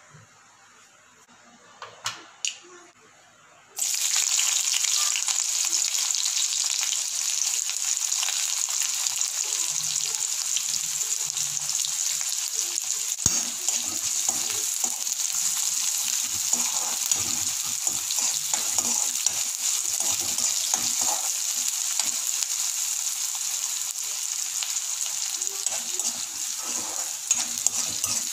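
Chopped onions frying in hot oil with mustard seeds in a metal pan: after a few light clicks, a loud steady sizzle starts suddenly about four seconds in and carries on. A single sharp knock comes near the middle, and a spatula stirs and scrapes the onions through the second half.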